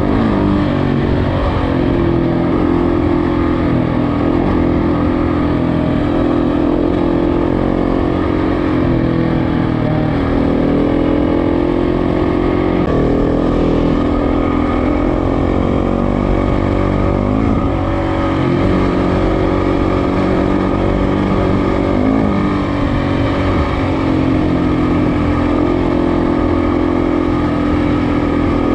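KTM motorcycle engine running while riding, its pitch dropping and climbing again several times as the throttle and gears change.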